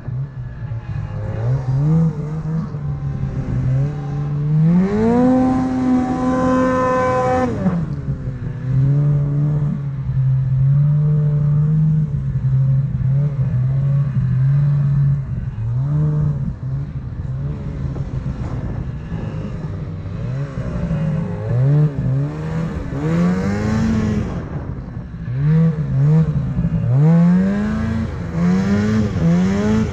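Snowmobile engine running under throttle through deep powder, its pitch rising and falling with the throttle: a long climb to high revs about five seconds in, dropping back about three seconds later, then a run of short, quick throttle blips in the last third.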